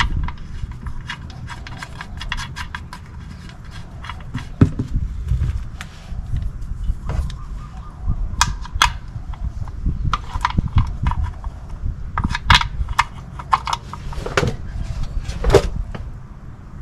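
Irregular metallic clicks and clinks of a wrench and the oil pan drain plug as the plug is put back in and tightened, over a low steady rumble.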